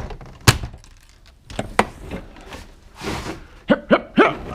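A sharp crack about half a second in, then scattered clicks and knocks, and near the end a few short squeaks falling in pitch, as a stuck part in a car interior is being pulled and pried loose.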